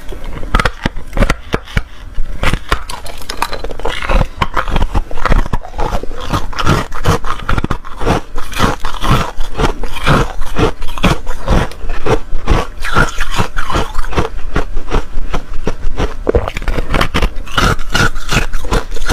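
Large frost-coated ice chunks bitten and chewed close to a clip-on microphone: a dense, irregular run of loud, sharp crunches and cracks.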